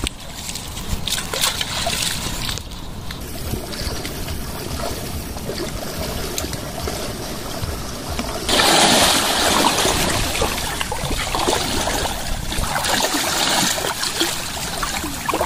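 Water splashing and trickling, with no speech. The noise gets suddenly louder about eight and a half seconds in.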